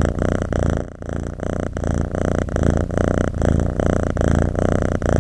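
Oriental Shorthair cat purring steadily close to the microphone, the purr swelling and dipping with each breath.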